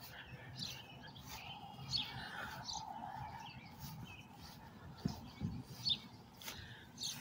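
Small birds chirping, short high calls every second or so, with a few soft footsteps on grass.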